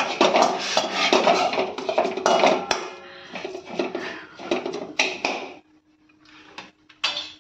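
A spatula scrapes and clatters against a metal kadhai as a dry mixture is stirred over the flame, in quick repeated strokes. The stirring stops a little over two-thirds of the way through, leaving a faint steady hum and a few knocks.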